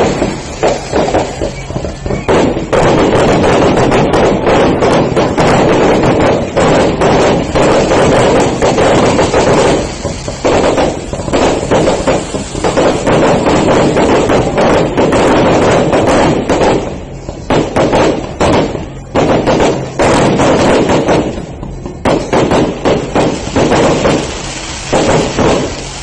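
Aerial fireworks display going off: a loud, dense run of bangs and crackles with a few brief lulls.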